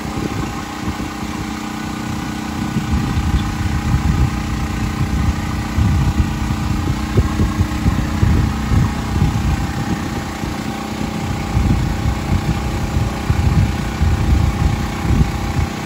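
A small engine running steadily at a constant speed, with a gusty low rumble of wind on the microphone.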